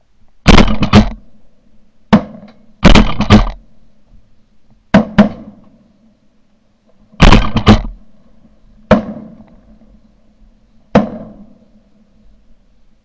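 Shotgun shots at flying ducks, about fourteen in all, in quick runs of two or three and some single shots, each loud crack ringing out briefly.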